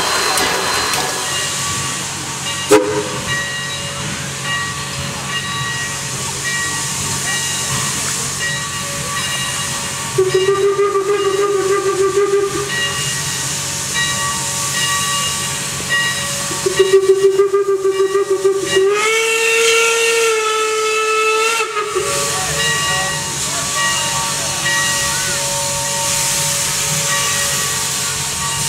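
Steam locomotive whistle blowing two blasts over a steady hiss of steam. The first lasts about two seconds; the second is longer and steps up in pitch partway through. A single sharp knock comes about three seconds in.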